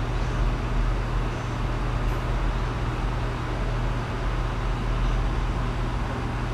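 Steady rushing background noise with an even low hum underneath, holding at one level throughout.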